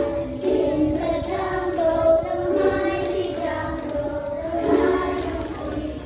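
A group of children singing together, with one long held note through the middle.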